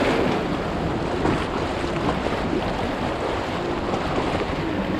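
A shallow, rocky creek rushing over its riffles, a steady wash of flowing water, with wind buffeting the microphone.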